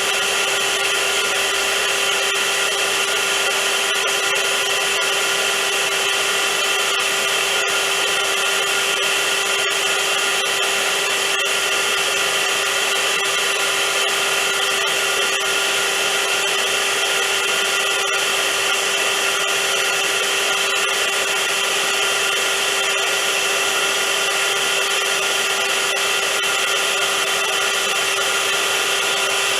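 Vacuum cleaner motor running steadily, a whooshing rush of air with a steady whine. It holds constant with no changes.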